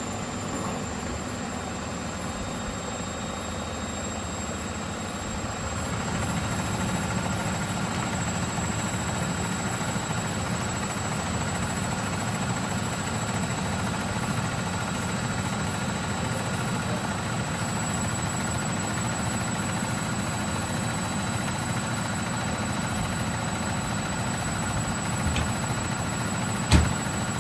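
Elin washing machine on a spin, motor and drum running with a steady whirring hum. About six seconds in it gets louder and a thin whine joins it. Near the end there is a single sharp knock.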